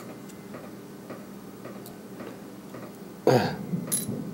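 Faint, scattered small clicks and taps of handling tiny parts on the phone. About three seconds in comes a short throaty vocal sound falling in pitch, like a throat clearing, followed by a sharp click.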